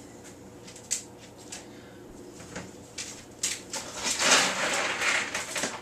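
Household handling noises: a few light clicks and knocks, then from about three and a half seconds in roughly two seconds of loud rustling and scraping, as someone handles something off camera while attending to a dog.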